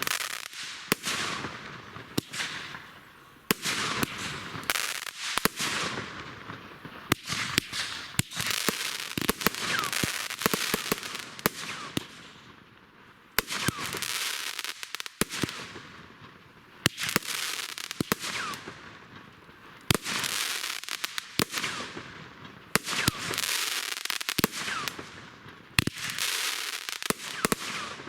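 Consumer fireworks going off in quick succession: sharp bangs, each followed by a dense crackling hiss that fades over a second or two, in waves every few seconds.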